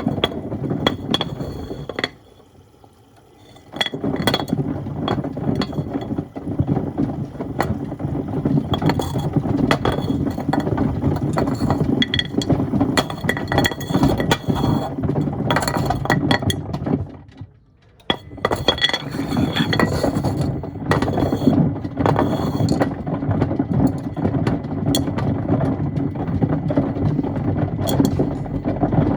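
Miele washing machine drum tumbling stones and wood: a constant clatter and clinking of stones knocking against the drum. It stops twice, briefly, as the drum pauses.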